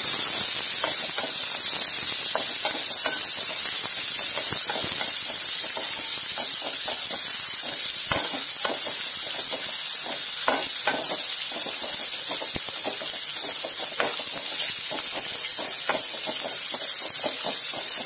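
Sliced onions, curry leaves and garlic sizzling in hot oil in a metal pan, with a steady hiss, while a wooden spatula stirs them, scraping and tapping against the pan many times.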